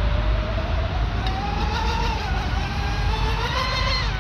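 Twin 1850 kV brushless motors of a radio-controlled mono hull speedboat whining under throttle, the pitch climbing steadily as the boat speeds up, then falling sharply near the end. A steady low rumble runs underneath.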